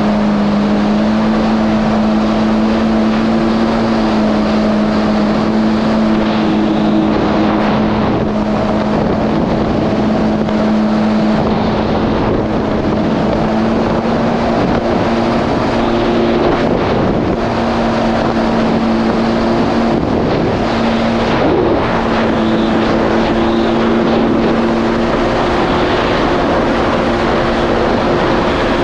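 Yamaha GP1800R SVHO jet ski's supercharged four-cylinder engine and jet pump running at a steady cruising speed, a constant drone that barely changes pitch, with rushing wind and water noise on the microphone.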